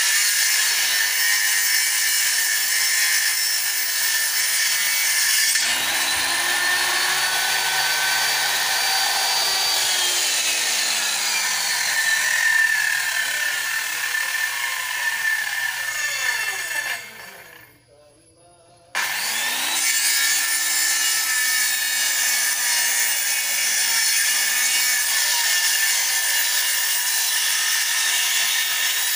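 Handheld electric circular saw cutting wooden planks, the motor running loud under load with its pitch sagging as it bites. About two-thirds through it winds down and stops for a moment, then starts again and keeps cutting.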